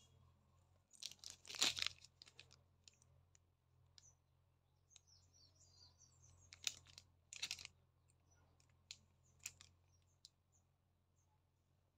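Faint handling sounds of a metal heart-shaped photo locket keychain and its packaging: a crinkling rustle about a second and a half in, two more short rustles past the middle, and scattered small clicks as the locket is opened, closed and turned in the fingers, over a low steady hum.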